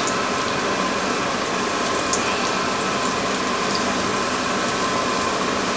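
Battered Spam fries sizzling steadily as they shallow-fry in hot oil in a frying pan.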